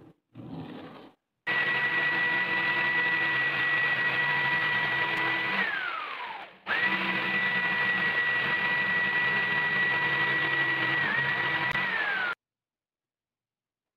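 A few brief scratches of a pencil drawing on plywood, then a corded jigsaw cutting a curve in plywood: a steady motor whine that winds down about six seconds in, starts again at once, and stops abruptly near twelve seconds.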